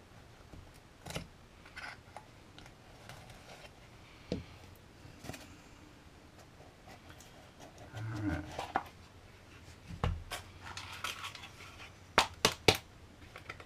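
A small product box and its packaging being opened and handled by hand: scattered light scrapes, rustles and taps, with three quick sharp clicks near the end.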